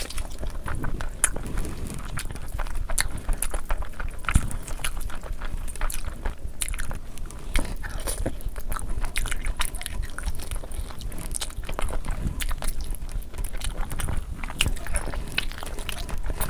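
Close-miked eating: a person biting and chewing food, with many irregular small clicks and mouth sounds throughout.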